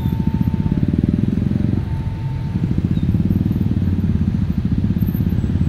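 A crowd of motor scooters idling and pulling away, their engines running with a steady low throb. A faint held higher tone comes and goes twice.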